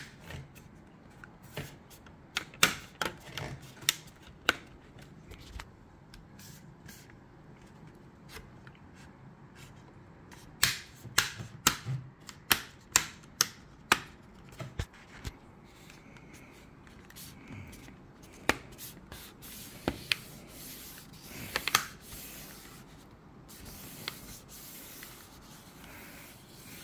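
Plastic screen bezel of a laptop display lid being pressed on by hand. Its clips snap into place in a string of sharp, irregular plastic clicks, most of them in the first half. Fingers rub along the plastic edge in the later part.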